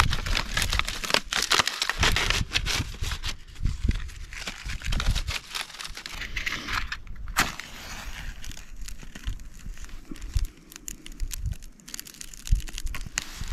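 Dry birch bark crinkling and tearing in quick rustles as it is pushed by hand into the cuts of a Swedish candle log, with one sharp click about seven seconds in.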